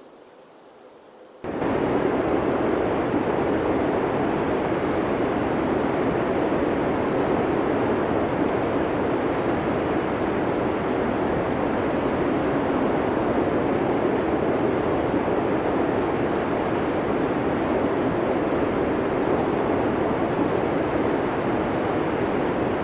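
Blizzard wind rushing as a loud, even noise. It cuts in suddenly about a second and a half in, after a brief quiet hiss.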